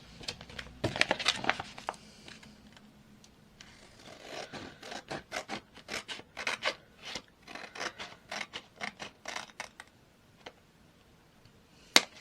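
Scissors cutting paper: a few snips about a second in, then a long run of steady snips, roughly two a second, as excess paper is trimmed off.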